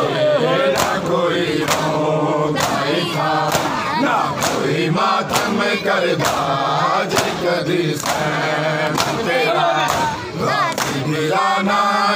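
A crowd of men chanting a mourning chant in unison while beating their chests in matam. The hand-on-chest slaps land together about once a second, in time with the chant.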